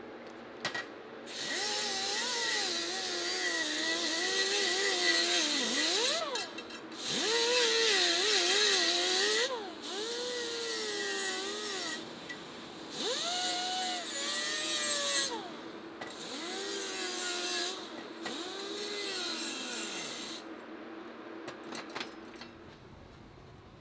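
Power tool working titanium exhaust tubing in about six bursts, its pitch dipping and rising as it is pressed into the work.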